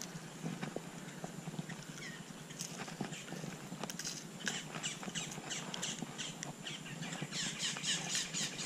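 Quick runs of light clicks and rattles from a fishing lure and its treble hook being worked out of a small snook's mouth by hand, mostly about halfway through and again near the end.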